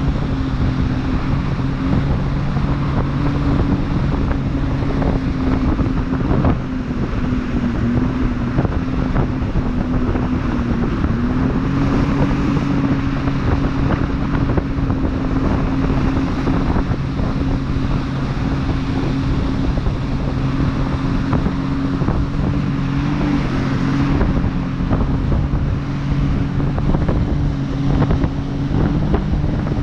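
Sea-Doo jet ski engine running steadily at towing speed, its note dipping briefly in pitch about eleven seconds in and again near the end, with heavy wind noise buffeting the microphone.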